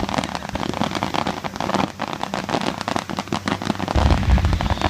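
Fireworks crackling densely, a rapid patter of many small pops from glittering crackle shells, with a heavier low rumble about four seconds in.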